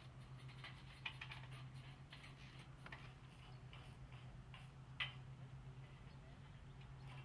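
Light clicks and taps of metal solar panel frames being handled and set onto metal mounting rails, with two sharper clicks about a second in and about five seconds in, over a steady low hum.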